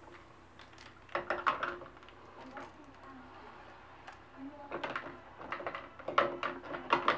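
Small glass pipe clicking and knocking against a plastic tub as hands push it under effervescent cleaning solution, with water sloshing. There is a short cluster of knocks about a second in and a longer run of them from about five seconds in.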